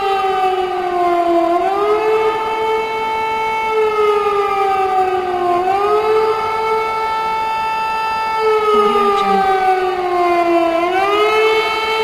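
Air-raid warning siren wailing: one pitched tone that sinks slowly over about four seconds, then sweeps quickly back up, again and again. It is the alarm for danger from the air.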